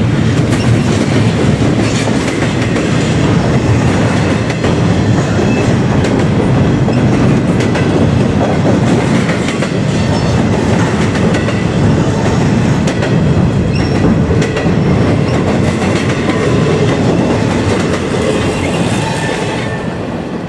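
Double-stack container freight cars rolling past close by: a steady, loud rumble of steel wheels on rail, with clicks from the wheels throughout. The sound fades a little near the end.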